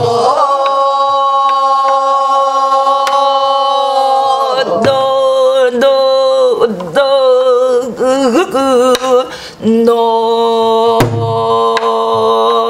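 A woman singing a Korean gueum exercise in pansori style on open vowels: long held notes that waver and bend, broken by short breaths about five and seven seconds in. A few low strokes on a buk barrel drum sound under the voice, at the start and again near the end.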